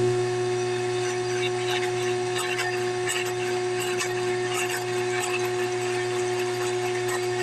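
Electric power tool motor running at a steady speed, with scattered small clicks and ticks from the work.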